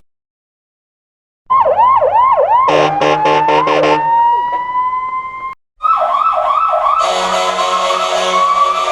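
Police truck siren sound-effect variations. After about a second and a half of silence comes a fast yelping siren, then a quick run of about five short pulses, then a slowly rising wail. The sound cuts off briefly, and a second yelp runs into a rising wail with a loud hissing noise layered over it.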